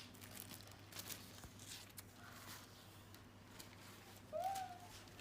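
Faint rustling and light clicks of a new laptop's protective wrap and packaging being handled and peeled off, with a brief rising tone about four seconds in.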